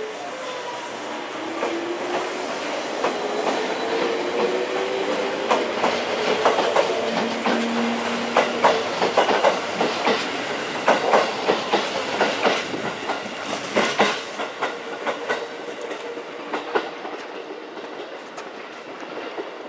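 JR Central 311 series electric train pulling away from a platform: its motor whine rises in pitch as it accelerates, then its wheels clack rapidly over rail joints and points as the cars pass, fading toward the end.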